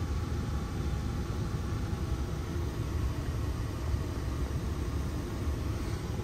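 Cab interior of a 2023 Ford Ranger Tremor with its 2.3-litre EcoBoost four-cylinder engine running, heard as a steady low rumble.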